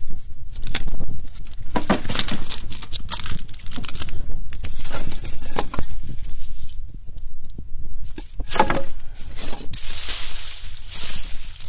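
Irregular crackling and rustling from a handheld phone microphone being moved over a wood heap of dry grass and leaves, over a steady low rumble. A louder hiss swells about ten seconds in.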